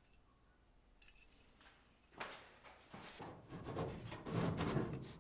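Galvanized sheet-metal drive cleat being slid by hand onto the vertical seam of two rectangular duct sections: metal scraping and rattling in uneven strokes. It starts about two seconds in and grows louder.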